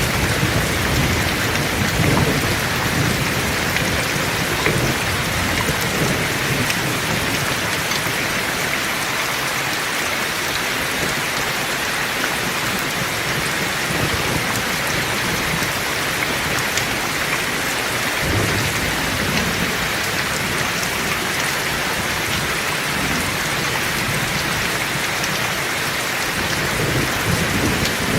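Heavy rain falling steadily, with low thunder rumbling at the start, again about two-thirds of the way through, and near the end.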